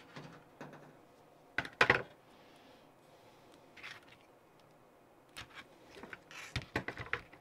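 Hands handling small parts and a roll of tape on a work table: scattered clicks and rustles, a louder clatter about two seconds in, and a quick run of clicks near the end.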